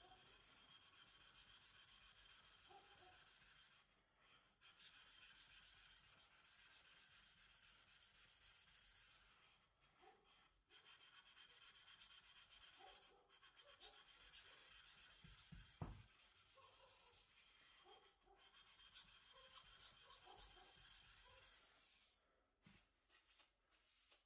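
Steel blade of a Deba knife being rubbed back and forth on a wet whetstone: a faint, steady gritty scraping in long runs with short pauses. There is a single soft thump about two-thirds through, and the scraping stops a couple of seconds before the end.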